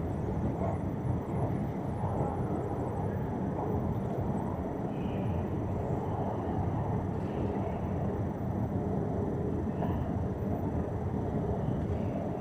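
Steady low rumbling noise of a running escalator, heard while riding it, mixed with the ambience of a large station hall, with a few faint short high sounds now and then.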